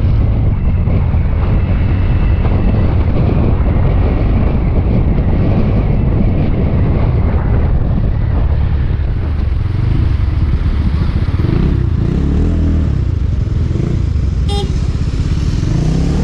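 Motor scooter engine running steadily while riding, mixed with road noise.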